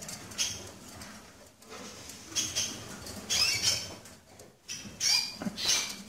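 Caged canaries giving short, high chirping calls in a handful of separate bursts.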